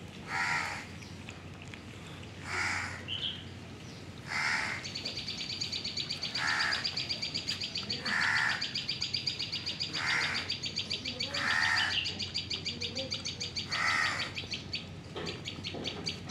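Birds calling outdoors: a short call repeated about every two seconds, with a fast, even, high trill running underneath from about five seconds in until near the end.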